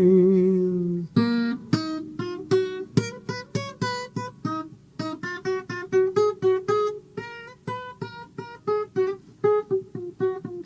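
Music: a held sung note fades out in the first second, then an acoustic guitar picks a steady run of single notes, several a second.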